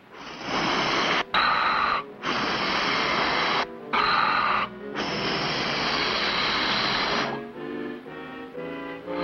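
Cartoon soundtrack sound effect: five loud stretches of rushing noise, each about one to two seconds long, starting and stopping abruptly with short gaps between. Soft orchestral music follows near the end.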